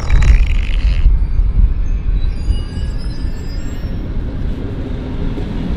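A fart noise played through a phone's speakerphone, cutting off abruptly about a second in. After it comes a steady low rumble of wind on the microphone and street noise.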